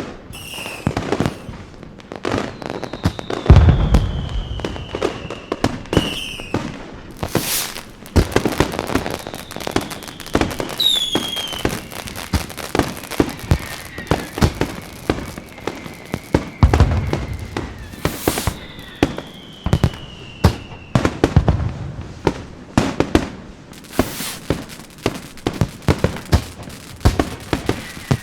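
Fireworks going off: a dense run of sharp bangs and crackling pops, with falling whistles and a couple of deep booms, the loudest about three and a half seconds in and another near seventeen seconds.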